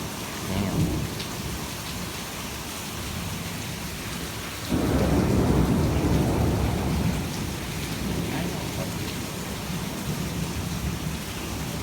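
Heavy rain falling steadily in a thunderstorm. About halfway through a low thunder rumble starts suddenly and fades over a few seconds.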